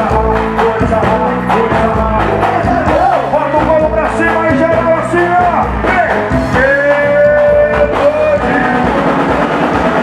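Live band playing loudly: singing over electric guitar, drums and percussion, with one long held sung note about seven seconds in.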